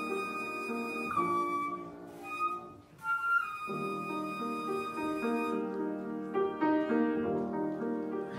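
Concert flute playing a slow melody of held notes over piano accompaniment. About two and a half seconds in the music briefly dips, and the flute comes back in on a long held note.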